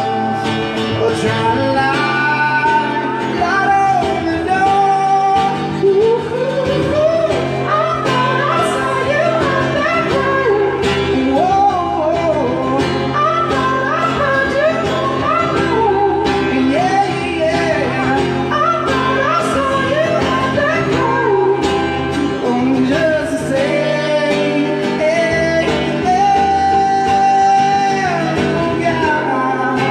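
Live acoustic guitar accompanying male and female voices singing through PA speakers, with melodic runs and a few long held notes.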